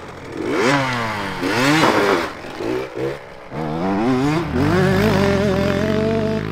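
KTM 65 two-stroke dirt bike engine revving up and dropping back several times as it is ridden, then pulling steadily higher and holding near the end.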